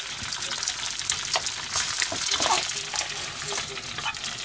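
Food sizzling in hot frying pans, with irregular scrapes and taps of a spatula stirring leftover yakisoba noodles and fried rice in a pan.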